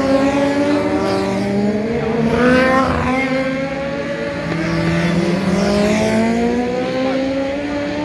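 Vintage racing motorcycles running through a bend one after another, their engines rising and falling in pitch as they come off and back on the throttle. The loudest pass comes about two and a half seconds in.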